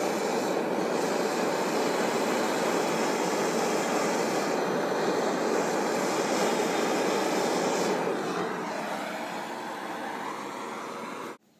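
Gas blowtorch flame burning steadily while it heats a copper pipe and brass fitting joint for soft soldering. It grows quieter about eight seconds in and cuts off abruptly near the end.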